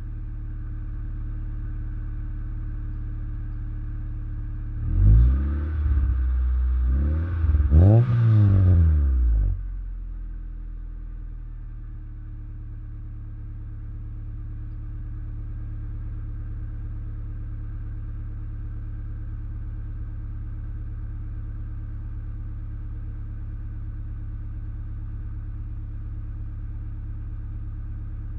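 Honda Civic EJ9's D14Z2 1.4-litre four-cylinder idling through a newly fitted Proex rear muffler. It is blipped a few times, rising and falling quickly, between about five and ten seconds in, then settles back to a steady idle.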